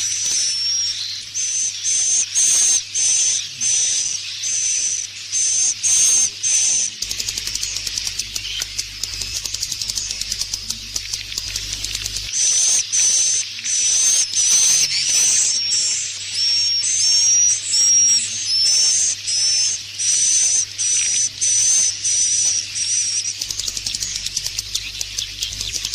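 Swiftlet roosting call (suara inap) lure recording: a steady train of short, high twittering chirps, a few per second, some with a small whistled pitch flick. Twice it breaks into several seconds of dense, rapid rattling clicks, once near the middle and again near the end.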